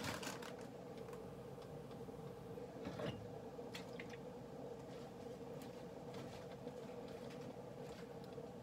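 Covered skillet of mixed vegetables steaming with a little water and soy sauce, with scattered faint crackles and a few soft clicks over a steady low hum.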